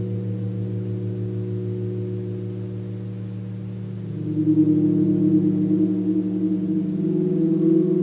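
A 36-inch gong resonating with several layered humming tones that pulse and beat against each other. About four seconds in it swells louder and richer as it is played on.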